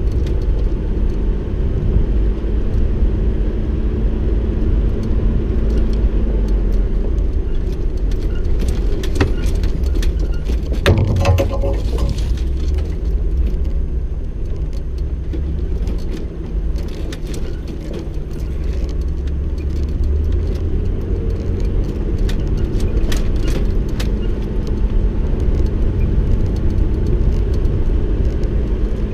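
Off-road vehicle driving over a rough dirt track: a steady engine and tyre rumble with frequent rattles and clicks, and a brief louder clatter about eleven seconds in.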